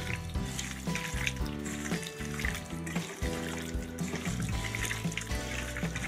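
Wet squelching of a hand squeezing and mixing chicken pieces in a curd and chilli-powder marinade in a stainless-steel bowl, over background music.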